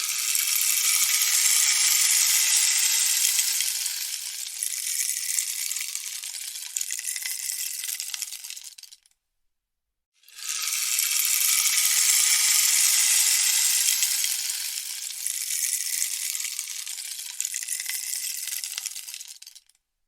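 Rainstick tipped over twice: each time its filling trickles down the tube in a rattling hiss lasting about nine seconds, loudest at the start and thinning out before it stops, with a brief silence between the two pours.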